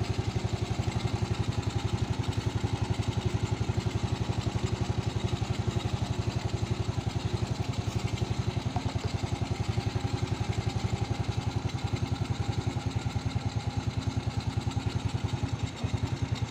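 A 70 cc underbone moped's single-cylinder four-stroke engine idling steadily, throttle untouched, with an even putter of about ten beats a second.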